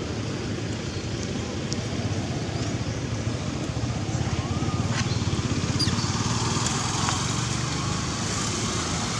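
Steady low rumble of a running motor vehicle engine, with a faint short chirp about four seconds in.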